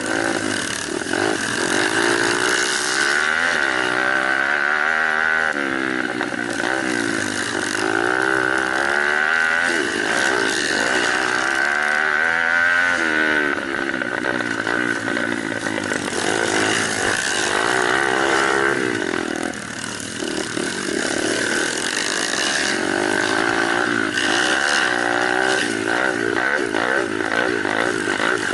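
Small off-road mini motorcycles running, their engine notes rising and falling over and over as they are revved and ridden, with more than one engine heard at once.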